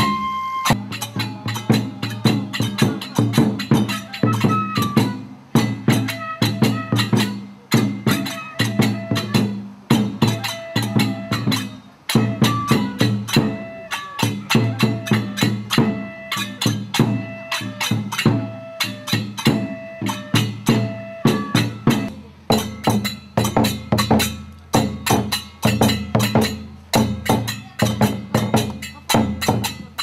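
Kagura music: a large barrel drum (taiko) beaten with sticks in a fast, steady rhythm, with a transverse flute playing held notes over it.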